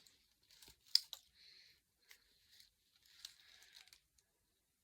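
Faint rustling and crinkling of packaging as a product is taken out of a beauty box, with a sharp click about a second in.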